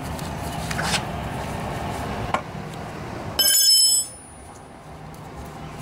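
Light clicks of a box-end wrench working on the carburetor's fuel solenoid. About three and a half seconds in comes a loud, bright metallic ring lasting about half a second, the wrench being put down.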